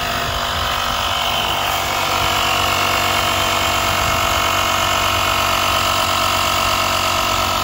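Built-in air compressor of a CAT 1200A portable power station running steadily, a constant hum with a high whine, pumping air into a tire at about 45 psi.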